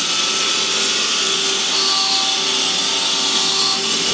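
Steady mechanical hiss and hum of running machinery, even in level, with a few faint steady tones under it.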